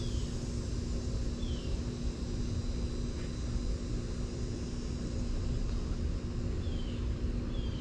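Backyard ambience: a steady low rumble with a constant mechanical hum, a thin high insect drone, and a bird giving short falling chirps, once near the start, once about a second and a half in, and several times near the end.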